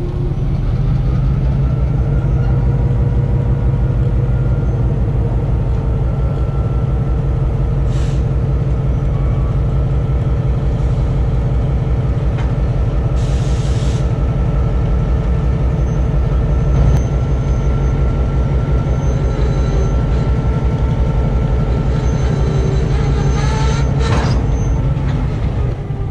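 Diesel locomotive engine running close by, a steady low throb, with short hisses of air about eight and thirteen seconds in.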